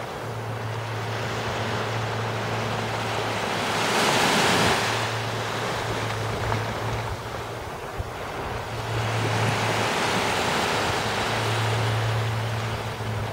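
Small waves washing in gentle swells, loudest about four seconds in, with wind buffeting the microphone. A steady low hum comes and goes underneath.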